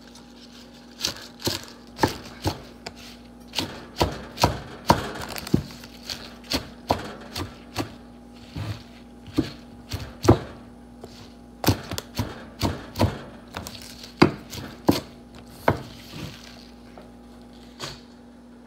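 Kitchen knife chopping fresh spinach on a wooden cutting board: irregular sharp knocks of the blade striking the board, about two a second, stopping a little before the end.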